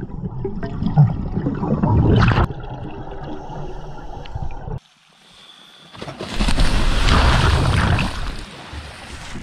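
Scuba diving underwater: divers' exhaled air bubbling from their regulators, with a knock about a second in. It cuts off suddenly about halfway, and after a short near-quiet gap comes about two seconds of loud splashing as water breaks at the surface.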